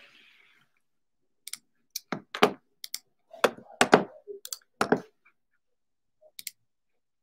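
Irregular clicks and knocks of hands handling things on a desk close to the microphone. About a dozen sharp taps come from about a second and a half in to about five seconds in, with a few fainter ones near the end.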